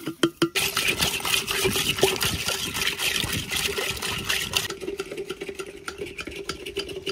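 Liquid pouring into yogurt to make lassi: a steady splashing pour that thins to a lighter trickle about four and a half seconds in.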